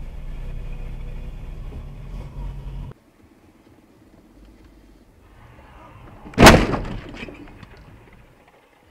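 Steady low road rumble heard inside a moving car, cutting off about three seconds in; about three seconds later a car collision, one loud bang dying away with a short rattle over about a second.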